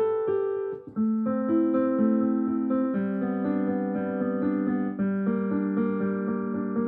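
Background music played on a keyboard, with held notes and a short break about a second in.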